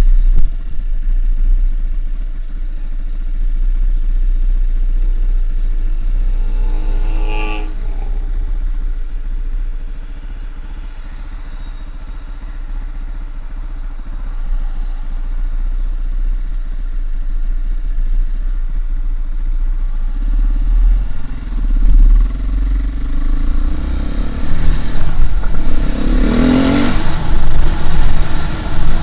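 Husqvarna SM510R supermoto's single-cylinder four-stroke engine running under a steady low rumble of wind and ride noise. It revs up briefly about seven seconds in and runs lower for a few seconds after. From about twenty seconds it builds again, revving hard near the end as the bike accelerates.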